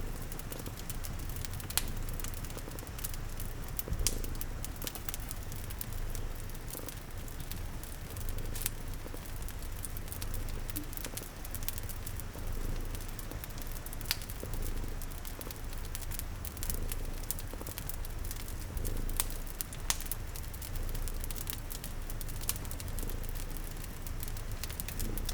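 Cat purring in a steady low rumble, layered with a crackling fire's scattered sharp pops and an even patter of rain.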